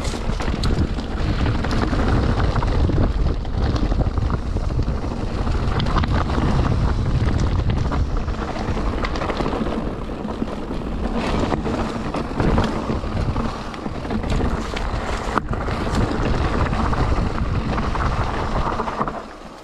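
Wind buffeting the camera microphone on a moving mountain bike, over a steady low rumble with many small clicks and knocks from the tyres and bike on a rough trail. It drops away just before the end.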